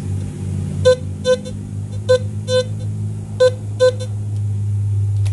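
Teknetics T2+ metal detector beeping as a silver coin is swept over its coil: six short, high beeps in three pairs, over a steady low hum. Each pass signals a high-conductivity target, reading 75 on the target ID for an 1808 Bern 6 Kreuzer.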